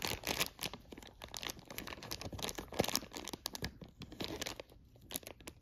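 Thin clear plastic bag crinkling and crackling in the fingers as it is picked at and pulled to get it open by hand. The small crackles come thick and fast, then thin out near the end.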